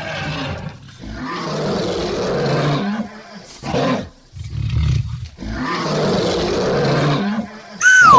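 Lion roaring and growling in several rough phrases of one to two seconds each, with short pauses between them. Near the end a cartoon 'boing' sound effect sweeps quickly downward in pitch.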